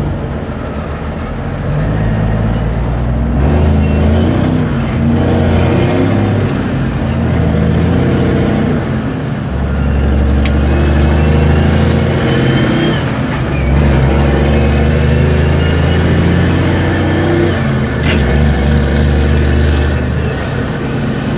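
Semi-truck diesel engine running under way, its low note holding steady and then changing in steps several times, with a faint high whine rising and falling above it.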